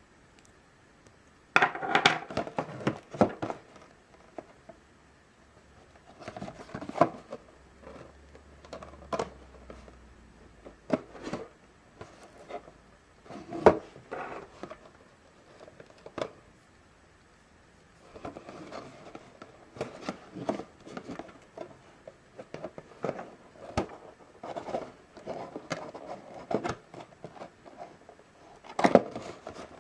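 A cardboard figure box being handled and opened by hand: irregular taps, scrapes and rustles of the card, in a dense cluster about two seconds in and again near the end.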